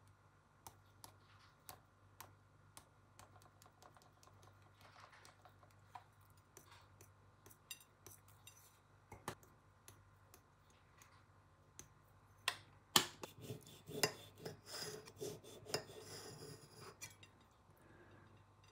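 Small kitchen clicks and taps from spice jars and a plate on a counter, then a louder run of clicking and rattling about two-thirds of the way through as spices and dried herbs are shaken onto avocado toast.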